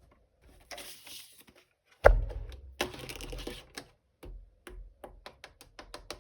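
Hands handling toy packaging: short rustles, a hard thump about two seconds in, then a quick run of sharp clicks and taps near the end.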